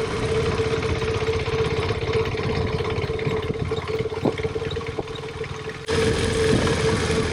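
KTM 390 Adventure's single-cylinder engine running as the bike rides along, with a steady hum over the engine noise; the sound gets abruptly louder about six seconds in.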